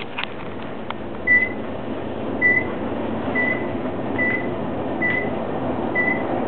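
Hotel elevator car in motion: a steady hum, with a short high beep repeating about once a second, six in all.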